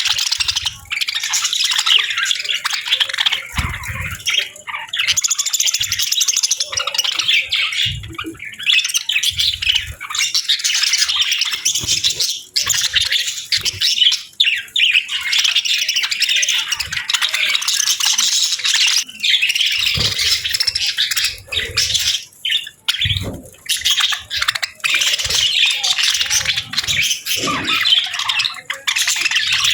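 A group of budgerigars chirping and warbling nonstop in dense, overlapping high chatter, with a few dull thumps scattered through it.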